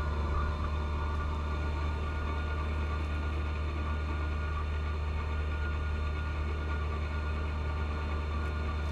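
John Deere 1025R compact tractor's three-cylinder Yanmar diesel running steadily under load, with its 54-inch front snow blower engaged. A constant low drone with no change in pitch.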